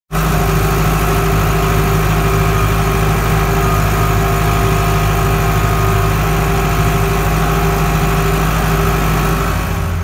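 Farm tractor engine running steadily, heard from the operator's seat just behind its vertical exhaust stack. Just before the end it gives way to a different, lower engine hum.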